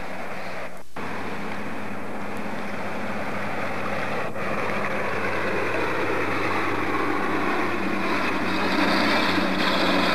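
Steady rush of a shallow river's current running over riffles, with a faint low hum beneath it; the sound drops out for an instant about a second in.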